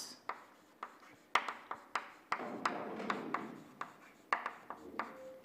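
Chalk tapping and scraping on a blackboard: a string of irregular sharp taps, with a short stretch of scratching about halfway through.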